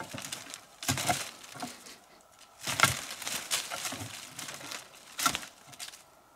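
Rustling leaves and crackling, snapping twigs in a few separate bursts as a person pushes through dense forest undergrowth and handles the branches, loudest about three seconds in.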